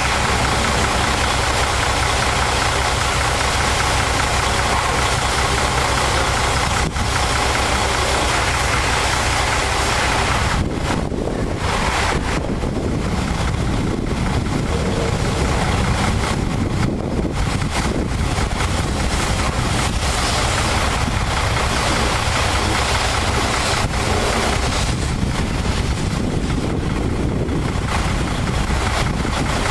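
High-pressure water spray hissing against a semi-truck tractor over a steadily running engine; the spray hiss thins out several times in the second half.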